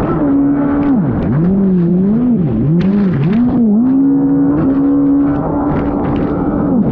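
Race jet ski engine running hard at speed, its pitch dropping sharply and climbing back several times as the throttle is cut and reapplied through turns, then holding steady for a couple of seconds, over hissing spray.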